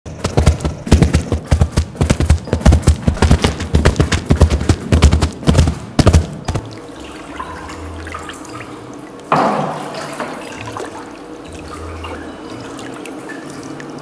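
Foley sounds: for about six seconds, a fast, irregular run of loud thumps and crunches as two plunger cups are pressed and stamped onto straw, gravel and carpet. Then water sloshing in a plastic tub, with one sudden splash about nine seconds in as a wooden cutting board is dipped in to fake canoe paddle strokes.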